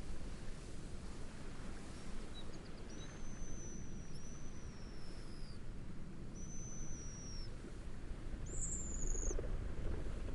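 A bird giving thin, high whistled calls over a steady bed of wind and wave noise: two long notes running together and falling slightly at the end, a shorter level note, and a higher, wavering note near the end.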